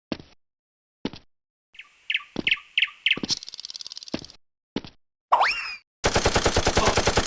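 Gunfire sound effects: a few single shots, a short patter of clicks and chirps, and a rising whistle about five seconds in, then rapid automatic fire breaks out near the end.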